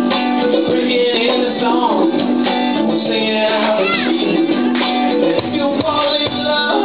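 Live band playing a song, with strummed acoustic guitar prominent, as heard from the audience through a small camera's microphone.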